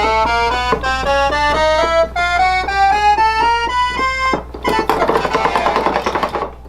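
Korg keyboard test-played after a repair: a run of single notes stepping upward in pitch at a few notes a second for about four seconds, then a denser, clattery passage that cuts off suddenly near the end.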